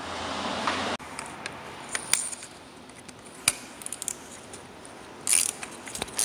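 Scattered sharp metallic clicks and clinks of an E10 Torx socket and ratchet working the EGR valve's mounting screws, with a short run of ratchet clicking near the end. A faint hiss cuts off abruptly about a second in.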